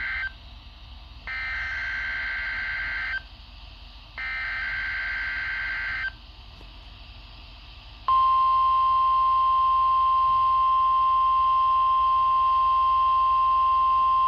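NOAA Weather Radio Required Weekly Test tones. First come the end of one and then two more harsh two-tone digital SAME header bursts, each about two seconds long with a second's gap between them. After a two-second pause, the steady 1050 Hz tone alert sounds, about 8 seconds in, and holds to the end. These are a test of the Specific Area Message Encoding and tone alert systems that activate weather radio receivers.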